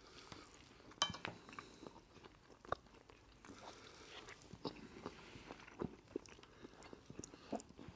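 Quiet eating sounds close to the microphone: soft chewing and scattered small mouth clicks as jollof rice is eaten, with light scrapes of wooden spoons on plates.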